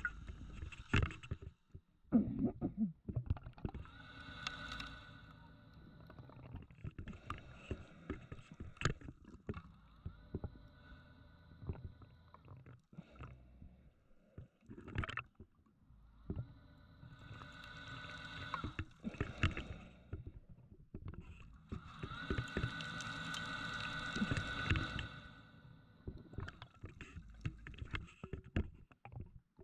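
Scuba diver breathing through a regulator underwater: four hissing inhalations with a steady whistle-like tone, about every six seconds, each followed by rumbling exhaust bubbles. Scattered clicks and knocks run through it.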